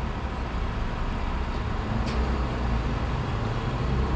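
A vehicle engine idling steadily as a low hum over traffic noise, with a single sharp click about two seconds in.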